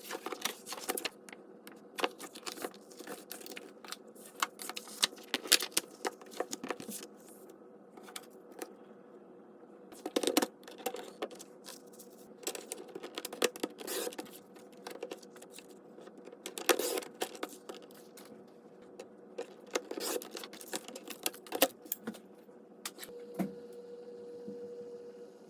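Irregular light clicks, taps and metal clinks of hands-on crafting: metal binder rings and paper pages being handled and fitted together on a desk. A faint steady hum runs underneath.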